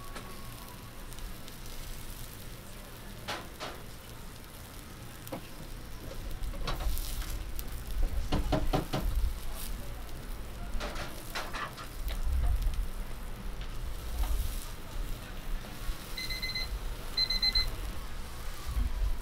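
Chicken and green-onion skewers sizzling on a hot grill grate, with scattered clicks and knocks and a low rumble. Two short electronic beeps near the end.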